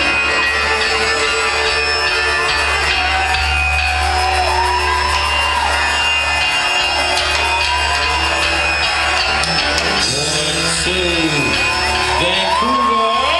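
Loud live concert music over a PA, with a steady heavy bass line throughout; in the last few seconds voices shout and whoop over it in rising and falling calls.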